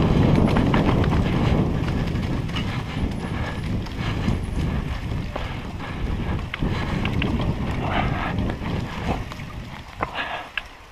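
Wind buffeting the microphone of a mountain bike's on-board camera on a fast dirt-trail descent, with knobby tyres rolling over dirt and scattered clicks and rattles from the bike. The rumble is strongest at first and eases toward the end.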